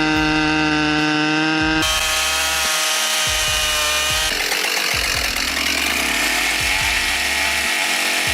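Two-stroke chainsaw running at high revs with a steady high-pitched buzz, then a rasping sound of the chain cutting through wood. The sound changes abruptly about two seconds in and again about four seconds in.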